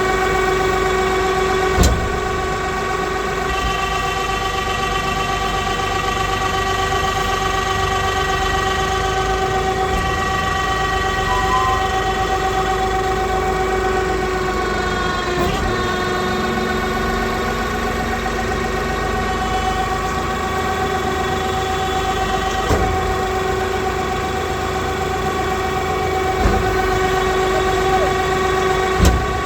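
Straw and husk baling press machine running: a steady whine with several fixed tones, broken by a few sharp knocks.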